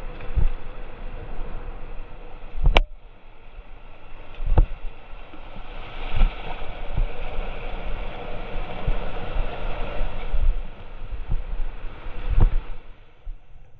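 Whitewater rapids rushing and crashing around a kayak, louder from about six seconds in as the boat drops into the foaming waves. A few sharp knocks stand out, the loudest near three seconds in, among low thumps of water hitting the boat and camera.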